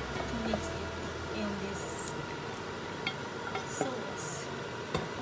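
A wooden spoon scraping fried sausage and vegetables out of a frying pan into a pot, with a few light clinks and knocks of metal.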